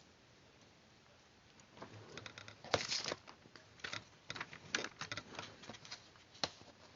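Paper and craft tools being handled: quick, irregular clicks and rustles. They start about two seconds in, with the sharpest about three seconds in.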